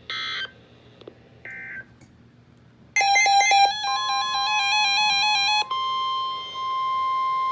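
A few short electronic chirps, then a weather alert receiver's electronic alert melody for about two and a half seconds. Under and after the melody, NOAA Weather Radio's steady 1050 Hz warning alarm tone sounds ahead of a new severe thunderstorm warning.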